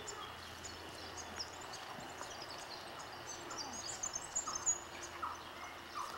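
Birdsong from several wild birds: many short, high chirps and twitters, busiest about four to five seconds in, with a few lower, shorter calls between them.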